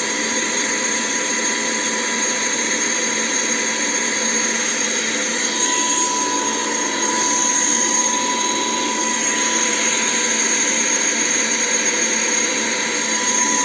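ILife H70 cordless handheld vacuum cleaner running steadily with a high whine, left on to see when the battery runs down and it switches off. It gets a little louder about seven seconds in.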